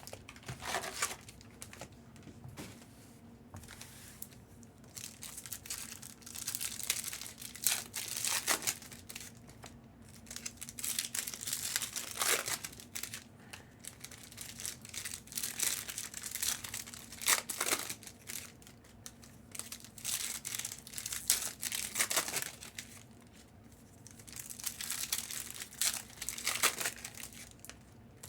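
Plastic trading-card packaging being torn open and crinkled by hand, in irregular crackling bursts, the louder ones coming every four to five seconds.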